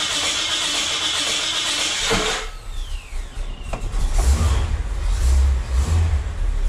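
Jeep Grand Wagoneer's AMC 360 V8 being started: the starter cranks with a harsh, awful-sounding grind, which the owner later puts down to the aftermarket starter sitting out of adjustment on its shims. About two seconds in the grinding stops with a falling whine, and the engine runs with a low rumble that grows louder near the middle.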